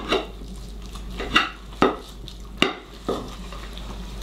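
A knife and fork clinking and scraping against a plate while slicing roast beef: about five sharp clinks over roughly three seconds.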